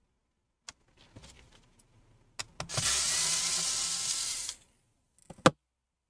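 Electric screwdriver running for about two seconds, backing out a laptop motherboard screw. A few light clicks come before it, and a sharp click near the end.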